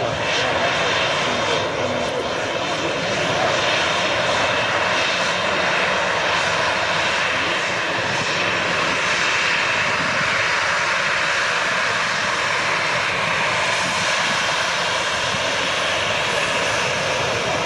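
Jet airliner's engines running near the runway: a steady rushing noise that swells slightly a few seconds in and again near the end.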